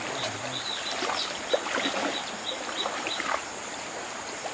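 Shallow stream water flowing and sloshing around people wading in it. Over it comes a run of short high chirps, about three a second, that stops about two-thirds of the way in.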